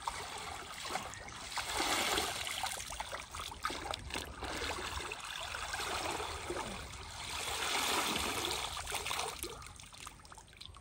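Muddy water sloshing and trickling as a perforated plastic crate is swept through a shallow pool and lifted out, scooping for fish. The sloshing comes in several swells.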